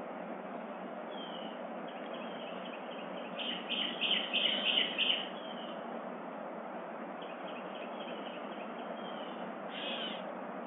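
Wild songbirds calling over a steady hiss: a quick run of about eight loud chirping notes in the middle, with fainter chirps before and after and one short call near the end.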